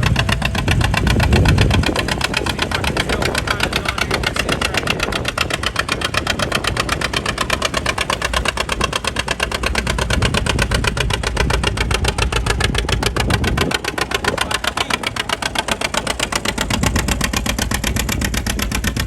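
Engine of a passing parade vehicle running steadily with a rapid, even exhaust beat.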